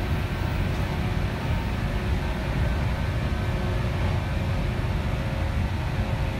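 Cabin noise of a 415 series electric train under way: a steady low rumble from the wheels and running gear, with a few faint steady hums above it.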